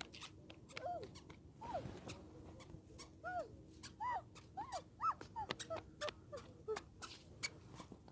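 A toddler's squeaky shoes squeaking with her steps: short squeaks that rise and fall, coming at an uneven walking pace of about one or two a second, with faint clicks in between.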